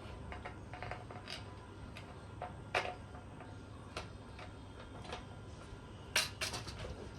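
Scattered light clicks and taps of hard parts being handled, with a sharper knock about three seconds in and another near the end, over a low steady hum.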